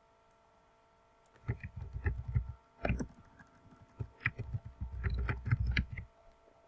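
Typing on a computer keyboard: runs of quick keystrokes start about a second and a half in and stop about six seconds in.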